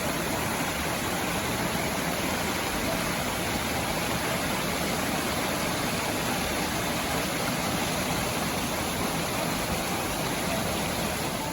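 Rushing stream water, a loud steady rush close to the microphone.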